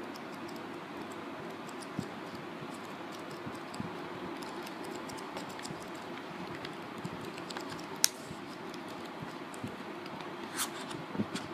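Pages of a thick 1,024-page paperback comic book being riffled through, many light paper flicks over a soft steady hiss, with a sharper tick about eight seconds in and a few more near the end.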